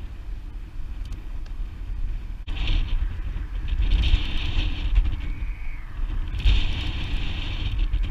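Wind rumbling on the microphone, with bursts of a fishing reel whirring as line is cranked in on a hooked fish: briefly near the start, then twice for about a second each.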